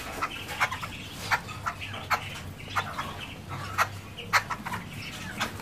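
Caged birds calling, a quick irregular string of short, sharp chirps and chattering calls, with a steady low hum underneath.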